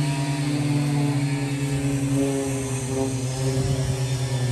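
Chainsaw engine running steadily at a distance, its pitch sagging a little about halfway through.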